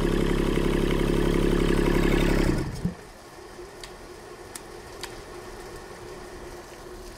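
Kubota D722-E three-cylinder diesel engine running steadily, then shutting off about two and a half seconds in and running down to a stop with a final thump. Afterwards only a faint hum and a few light ticks remain.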